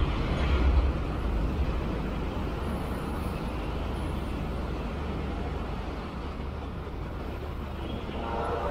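Steady road traffic of heavy trucks, motorcycles and buses going by: a continuous low engine and tyre rumble, loudest in the first second as a heavy truck passes close. Near the end a pitched engine note joins in.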